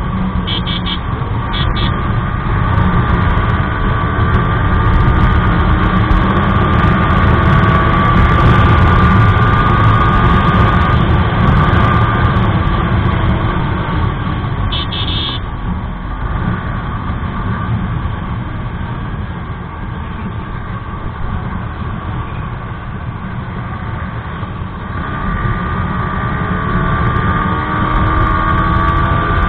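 Yamaha R15 v3's 155 cc single-cylinder engine running hard at road speed under heavy wind rush on the microphone, its pitch rising gently as it accelerates. Short horn beeps sound near the start and again about fifteen seconds in.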